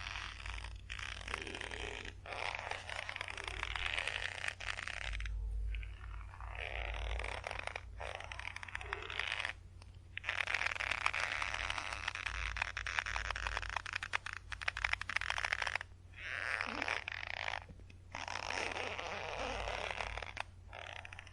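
Rope creaking under tension: long strained creaks with a rapid crackling grain, broken by brief pauses every few seconds.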